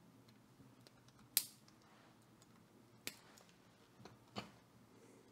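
Small flush cutters snipping off excess component leads on a transistor radio's circuit board: two sharp snips about a second and a half apart, then a couple of lighter clicks.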